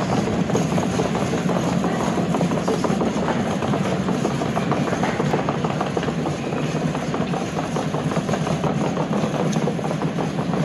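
Steady rumble of road traffic and airport surroundings with a constant fine rattle, picked up on a handheld camera's microphone.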